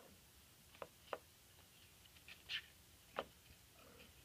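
Near silence with a few faint, sharp clicks and a brief soft rustle.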